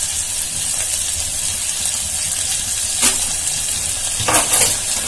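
Chopped onions and green chillies sizzling in hot oil in an aluminium pressure cooker, a steady high hiss. A sharp click comes about three seconds in, and a brief clatter comes near the end as another chilli is dropped into the pan.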